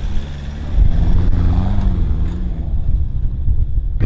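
An engine running under load with a low rumble, its pitch rising and then falling back about a second and a half in.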